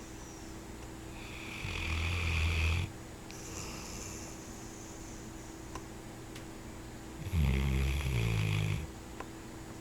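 A sleeping mastiff snoring: two loud snores, one starting about a second in and one near the end, with quieter breathing between them.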